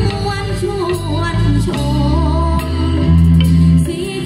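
Live Isan pong lang band music with singing over a bass line and drum kit, accompanying a traditional fon dance.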